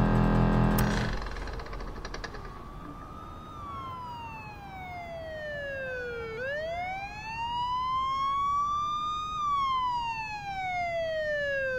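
A steady hum cuts off with a click about a second in, and a siren starts wailing, its pitch sliding slowly down and up in sweeps of about three seconds each.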